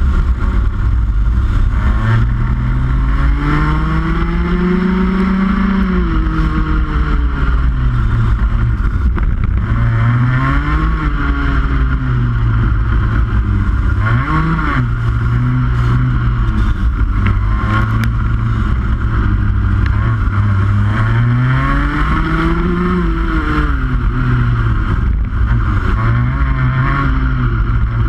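Rotax Max 125cc two-stroke kart engine at race pace, its pitch climbing up the revs and falling back again several times as the kart accelerates out of corners and lifts for the next.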